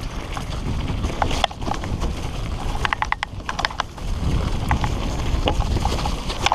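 Rigid singlespeed mountain bike, a Redline Monocog, clattering over a bumpy dirt trail at speed: many sharp, irregular clicks and rattles over a steady low rushing rumble.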